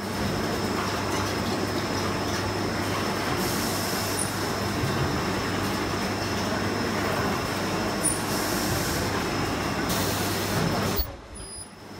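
Automatic film-cutting machine running: a steady mechanical rumble of rollers and drives with a constant low hum and a thin high whine, dipping briefly near the end.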